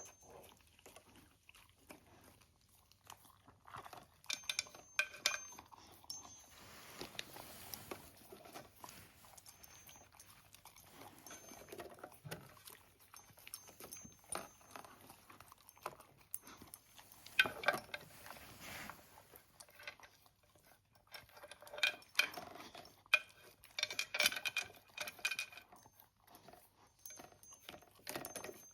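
A pet eating its breakfast: chewing and crunching food, with sharp clicks coming in bursts that are busiest in the second half.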